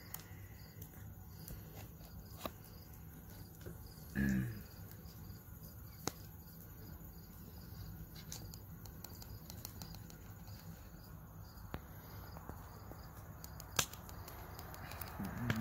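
Crickets chirping steadily in the background, with a few sharp clicks, the loudest near the end, and a short voice sound about four seconds in.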